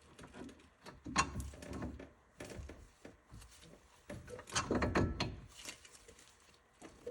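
Irregular metal clunks, knocks and rattles of a new outer tie rod end being worked by hand into position on the front steering knuckle, busiest about a second in and again around four and a half seconds in.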